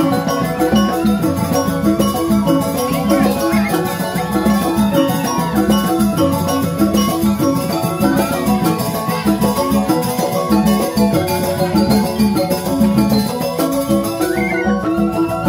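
Balinese joged bumbung gamelan playing: bamboo xylophones ring out a fast, busy melody over the beat of kendang hand drums.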